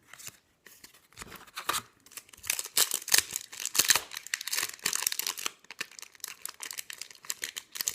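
Foil Yu-Gi-Oh! booster pack wrapper being torn open and crinkled in the hands, a long run of crackling rips and crinkles.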